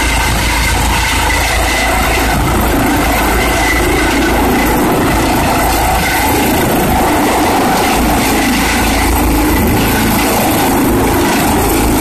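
Airbus EC135 air-ambulance helicopter descending to land, loud and steady: the whine of its turbine engines over the beating of the main rotor.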